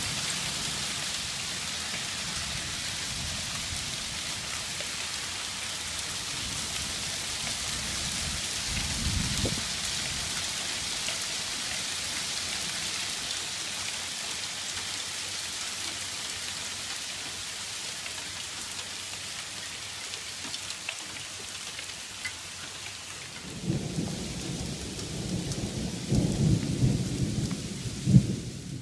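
Hail falling steadily on a gravel driveway and garden shrubs: a dense, even hiss of pellets striking. Near the end it is joined by louder low rumbling with a few sharp knocks.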